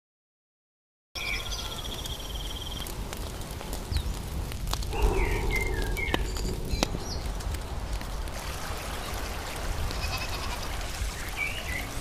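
Rural outdoor ambience, starting after about a second of silence: small birds chirping and trilling over a steady low rumble, with one bleat about five seconds in, lasting about a second.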